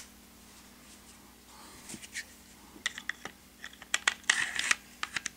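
Light clicks and short scrapes of a Glock pistol's slide and barrel being handled and fitted together during reassembly, scattered from about two seconds in, with a quick cluster of clicks around four seconds in.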